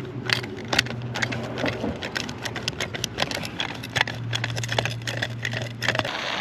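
Irregular sharp clicks and knocks, a few each second, over a steady low engine-like hum that stops near the end.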